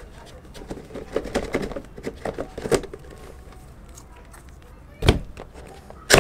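Scissors snipping through the seal sticker on a cardboard camera box, with short irregular scraping and cutting sounds. These are followed by two sharp knocks near the end.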